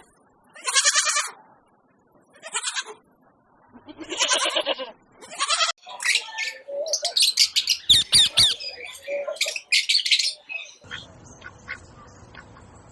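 A farm animal bleating three times with a quavering pitch, then several birds squawking in a dense, high-pitched run for about four seconds.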